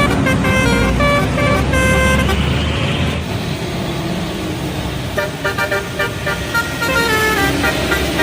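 A bus telolet horn playing a quick run of short stepped musical notes over the low rumble of the bus engine, with a second run of notes coming in from about five seconds in.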